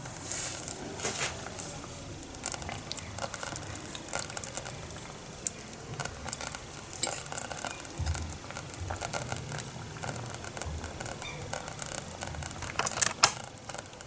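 A metal fork poking, scraping and tapping against the ceramic slow-cooker crock as it picks through stewed pollock, in many small irregular clicks with a louder clatter near the end.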